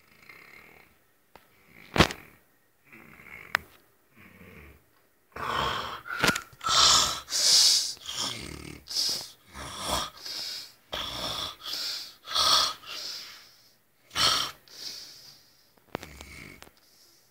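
A person snoring, with separate rasping, wheezy snores. The snores are soft at first and become a run of louder, faster snores from about five seconds in. A sharp click about two seconds in is the loudest instant.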